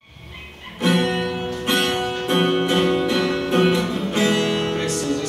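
Acoustic guitar strumming chords as a song introduction, starting faintly and coming in fully about a second in, with a new strum roughly every half second.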